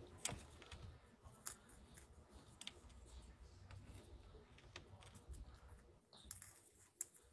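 Near silence with a few faint, sharp clicks and taps, scattered irregularly, with one about every second or two.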